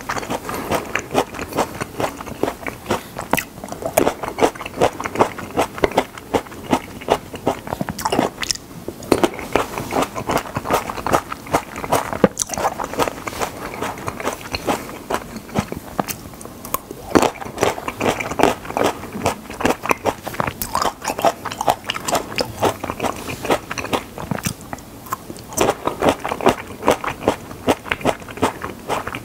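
Person chewing cherry tomatoes close to a clip-on microphone: a continuous run of many small bites, clicks and mouth smacks, with a few brief lulls.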